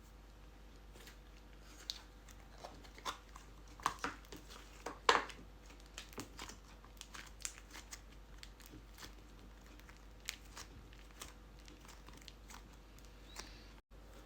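Scattered small crinkles and clicks, as of hands handling crinkly play materials, the loudest about five seconds in.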